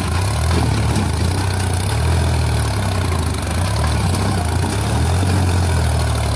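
Sonalika DI 745 III tractor's diesel engine labouring under heavy load as it strains to pull a loaded trolley out of soft dirt, its low note swelling and easing every second or two.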